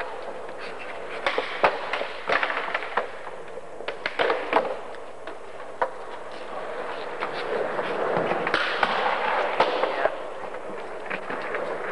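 Skateboard wheels rolling on smooth stone paving, with repeated sharp clacks from the wheels crossing tile joints and the boards knocking the ground. The rolling noise swells about eight seconds in as two boards are pushed along together.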